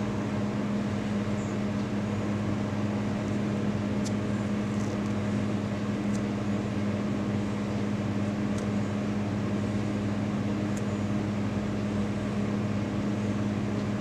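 Steady low mechanical hum with a few faint ticks now and then.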